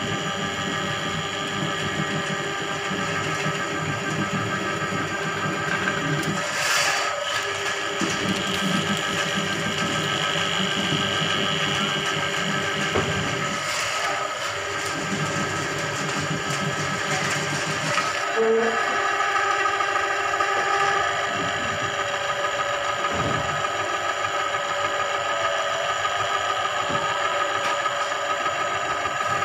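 Motorised drain-cleaning machine running steadily, turning its coiled spring cable in a clogged drain to clear the blockage, with an occasional brief knock.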